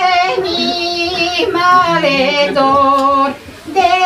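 Elderly woman singing a Bulgarian folk song unaccompanied, drawing out long held notes with small wavering ornaments between them. She breaks off for a breath about three seconds in and comes back in just before the end.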